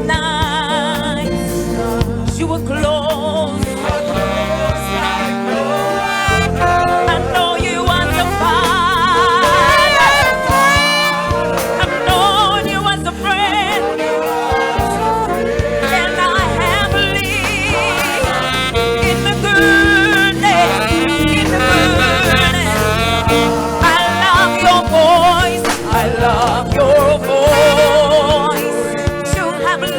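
A gospel worship song being sung with vibrato over a band accompaniment.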